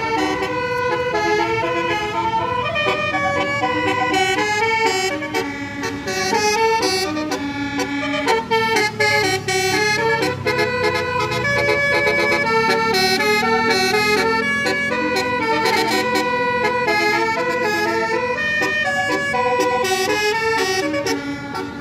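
Tour bus's telolet basuri musical air horn playing a melody in stepped notes, over the noise of vehicles.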